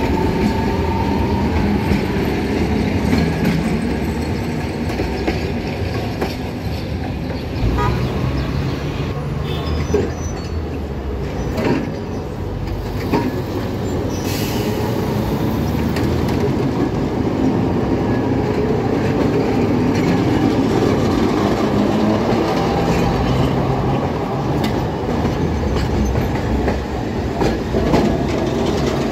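Alexandria Raml tram cars running past at close range: a steady rumble and rattle of wheels and bodies on the track, with scattered clicks and clacks over the rails.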